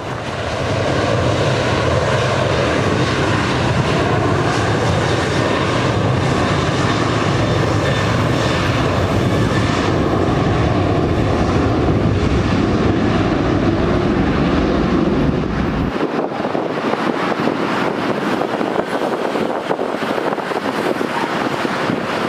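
Jet airliner's engines running loud and close, a steady rush over a deep rumble. About sixteen seconds in the deep rumble cuts off abruptly, leaving a lighter rush.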